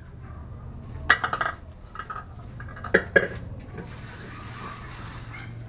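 Metal cookware clattering: a large pot knocking against metal bowls, in a cluster of clanks about a second in and two sharp ones about three seconds in, over a steady low hum.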